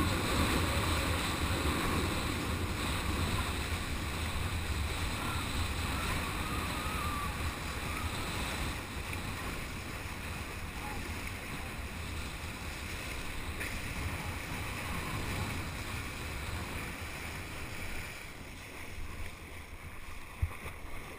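Wind buffeting the microphone over a steady rush of water as a kiteboard planes across the sea, with spray hissing off the surface. The rumble eases slightly toward the end, and there is one sharp knock near the end.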